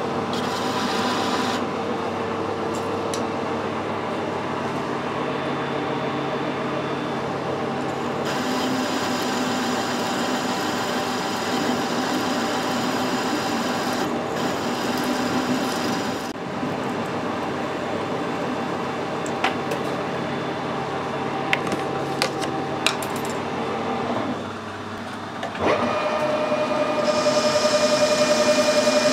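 Metal lathe running, its cutting tool turning a metal bar, with a steady whine from the machine. A few sharp clicks come about two-thirds of the way in. Near the end the sound dips briefly and comes back louder with a higher whine.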